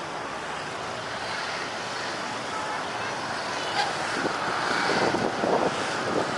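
Strong wind buffeting the microphone: a steady rushing roar that turns gustier and more uneven in the second half.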